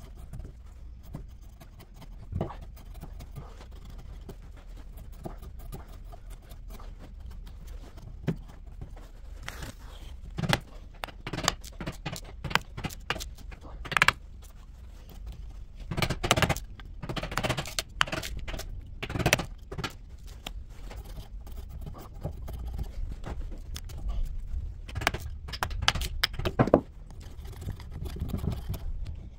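Steel chisel cutting and scraping at the edge of an oak slice, some strokes pushed by hand and some driven by a hammer: irregular sharp knocks and rasping scrapes, busiest in the second half.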